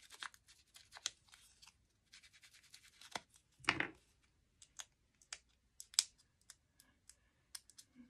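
Small dry scratches, clicks and crackles of fingers picking and peeling a paper mushroom sticker from its backing, with one duller knock a little under four seconds in.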